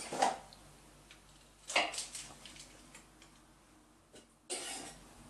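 Kitchen handling noises: a short knock or rustle at the start and another about two seconds in, then a longer rustling, scraping noise near the end, as fresh yeast is unwrapped and added to a Thermomix.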